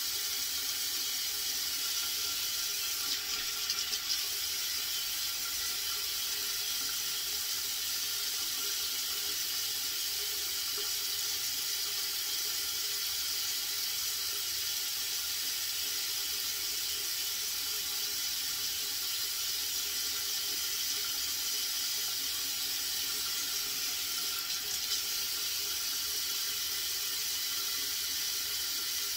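Steady rush of running water, like a tap left running, unchanging throughout, with a few faint brief knocks about three seconds in and near the end.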